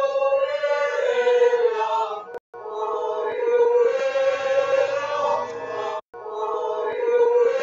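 Choir-like singing voices on held notes that slowly shift in pitch, cut off abruptly twice by a brief silence as the recording is played in short repeated segments. The uploader presents it as a metafonia (EVP) recording of angels and saints singing, heard as 'Oh Dio vedo qua'.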